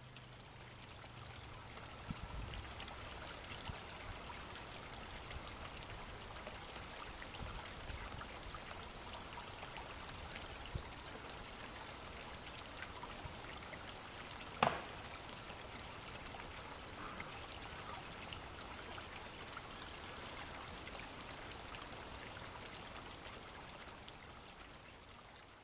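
Steady outdoor background noise, an even hiss like distant running water, with one sharp click about halfway through.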